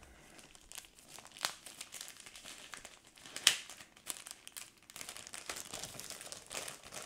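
Comic book mailer packaging crinkling and rustling as it is unwrapped by hand, with a few sharper crackles, the loudest about three and a half seconds in.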